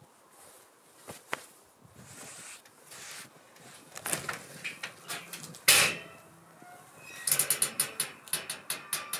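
Box trailer's hard lid being unlatched and lifted: scraping and rustling, one loud sharp clack a little past the middle, then a quick run of clicks and knocks, about five a second, as the lid goes up.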